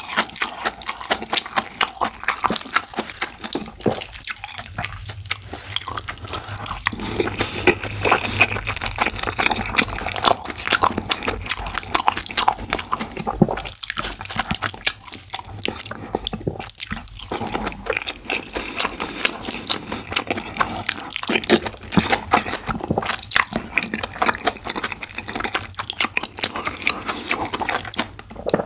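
Close-miked eating sounds of rice with curry and black bean sauce: wet chewing and smacking, with many quick sticky clicks.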